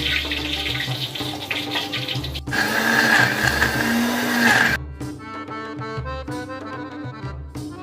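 Electric blender running for about two seconds, grinding onions, garlic and lemongrass with a little water into a paste, with a steady whine over its rushing noise; it starts about two and a half seconds in and cuts off suddenly. Before it there is a steadier rushing noise, and instrumental background music plays throughout.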